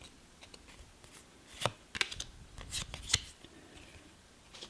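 Yu-Gi-Oh trading cards being handled: a few quick slides and flicks of card against card, clustered in the middle, the sharpest about a second and a half in.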